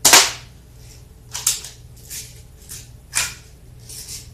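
A single sharp crack of a Daisy 117 Targeteer BB pistol shot right at the start, followed by about five fainter, short, rasping clicks spread over the next few seconds, one louder than the rest about three seconds in.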